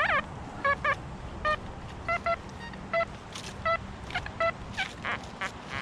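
Metal detector target tones: a string of short electronic beeps at varying pitches, some low and some higher, as the search coil sweeps over small metal targets in the wood chips.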